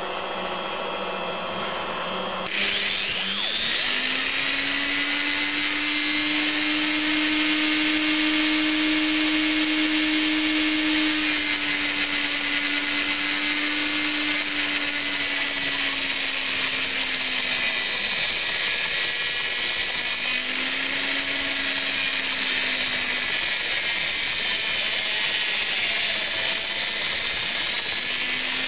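Small rotary tool (Dremel-type) mounted in a lathe toolpost, running at speed and grinding a steel pipe as it turns in the lathe chuck: a steady high motor whine with grinding. It gets louder about two and a half seconds in.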